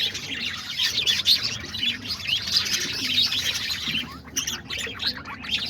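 A flock of parakeets (budgerigars) chattering: a dense, continuous mass of quick, overlapping high chirps, with faint low cooing underneath now and then.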